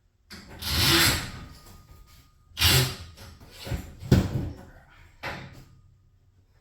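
A run of clattering knocks and scrapes, about five in all. The first swells and fades over about a second, and a sharp loud one follows just before the middle.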